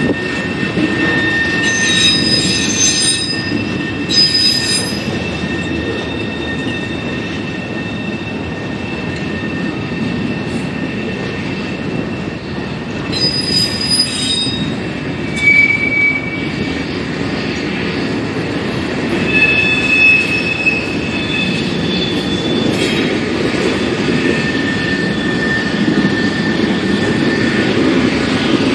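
Freight cars of a mixed freight train rolling past: a steady rumble of steel wheels on the rail, with high-pitched wheel squeals that come and go several times.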